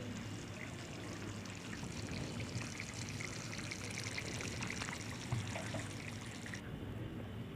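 Thick chicken gravy simmering in a kadai, bubbling and crackling steadily over a low hum; the crackle drops away near the end.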